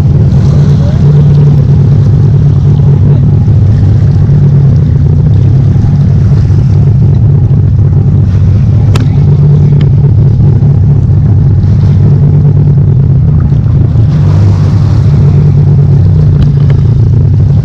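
Boat engine running steadily at low speed, a loud continuous low rumble, with one sharp click about halfway through.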